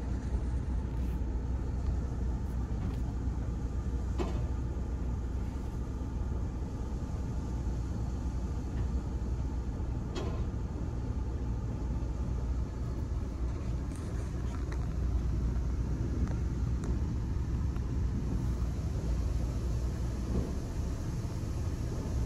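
Steady low rumble heard from inside a car's cabin as it goes through a tunnel car wash, with a few faint ticks along the way.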